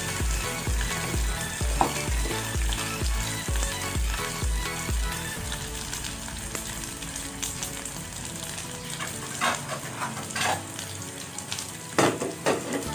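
Dried fish (daing) frying in hot oil in a small saucepan: a steady sizzle, turned with tongs at first, with a few sharp crackles in the last few seconds.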